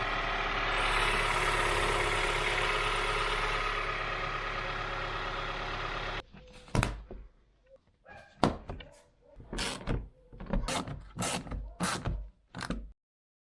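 Mazda CX-5's 2.0-litre Skyactiv-G four-cylinder idling steadily on its fresh oil, cutting off abruptly about six seconds in. Then a series of about eight short thunks and knocks, irregularly spaced.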